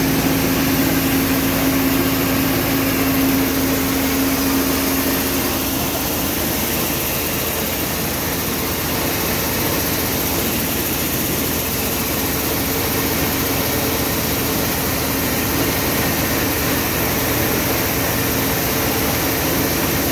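Tractor engine running steadily, driving a mini rice mill through its PTO shaft, with the mill running as rice pours out. A steady hum is strongest for the first few seconds, then eases.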